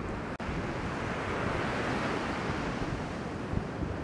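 Steady rush of breaking surf mixed with strong offshore wind buffeting the microphone, with low gusty rumbles. The sound drops out for an instant about half a second in.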